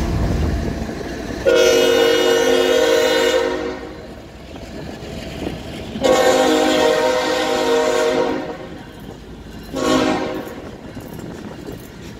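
Union Pacific diesel locomotive's multi-note air horn sounding two long blasts and a short one, the standard grade-crossing signal, over the steady rolling and clatter of loaded coal hoppers passing.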